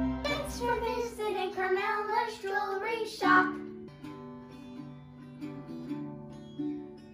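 A child's voice singing a short bending line for about three seconds, then an acoustic guitar picked note by note at an easy, even pace.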